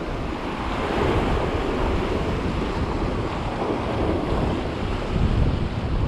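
Sea surf washing against a rocky shore, with wind buffeting the microphone; one surge swells louder about five seconds in.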